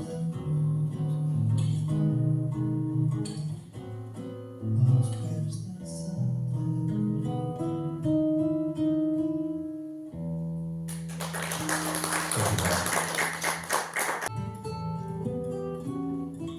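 Acoustic guitar playing an instrumental passage of plucked melody over bass notes, with a burst of fast strummed chords lasting about three seconds near the end.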